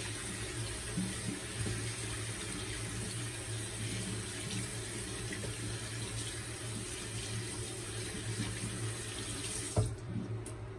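Bathroom sink tap running steadily while a shaving soap puck is rinsed under it. The water is shut off suddenly near the end, with a short knock.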